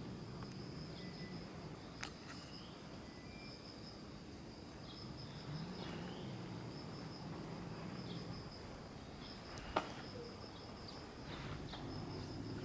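Insect trilling steadily at one high pitch from the roadside hedges, with a faint low rumble beneath and two sharp clicks, about two seconds in and again near ten seconds.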